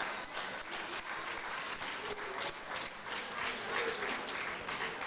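Banquet audience laughing and clapping: a dense crackle of many hands and voices.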